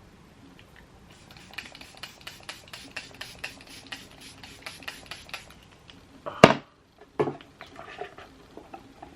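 A run of quick, light taps at about four a second for several seconds, then one sharp knock and a softer one: makeup tools and products being handled and dabbed while concealer is applied.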